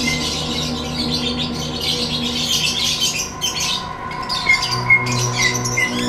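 Lovebird chattering in a fast, unbroken high-pitched stream. The chatter breaks off twice briefly a little past halfway, then resumes.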